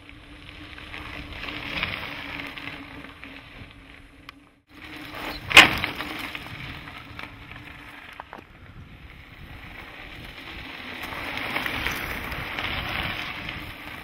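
Mountain-bike tyres crunching over a gravel road as riders pass, the noise swelling and fading, with a sharp loud rush about five and a half seconds in.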